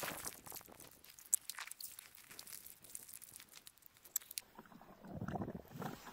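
Snow crunching and light clicks of hands working in an enamel pot, then a short muffled rush about five seconds in as the pot's rinse water is tipped out onto the snow.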